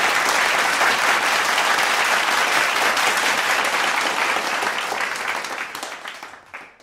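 Crowd applause, a dense steady clapping that fades out over the last second or so.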